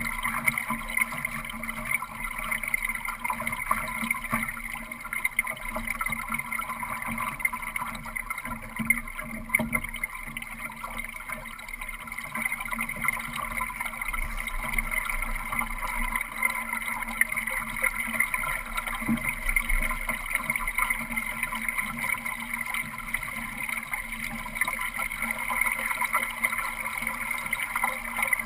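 Water rushing and gurgling along the hull of a Solo-class sailing dinghy under sail, a steady wash with small irregular surges.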